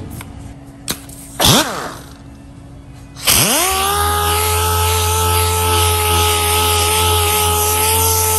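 Air-powered dual-action (DA) sander spinning up about three seconds in and then running steadily, a steady whine over air hiss, as it sands primed bodywork with 400-grit paper on a soft interface pad. A couple of short knocks come before it starts.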